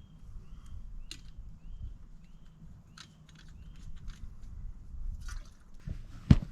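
A small bird repeats a short high call about five times, over scattered light clicks and crackles; a heavy thud comes near the end.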